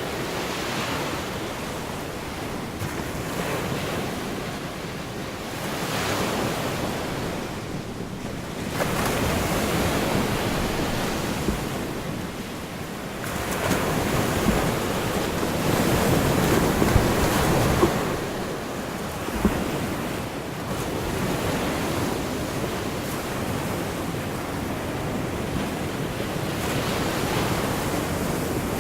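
Gulf of Mexico surf breaking and washing onto the beach, swelling and easing every few seconds.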